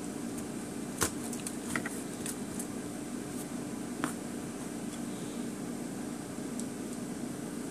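Plastic toy figures being handled and set down on a table: a sharp click about a second in, a quick run of small taps after it, and another click at about four seconds, over a steady low hum.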